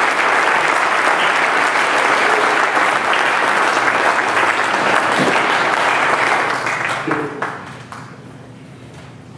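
Audience applauding, a dense clapping that dies away about seven seconds in.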